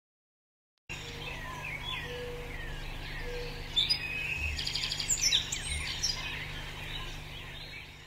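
Silence for about the first second, then several wild birds chirping and whistling over a steady background hiss, with a few rapid trills midway, fading out near the end.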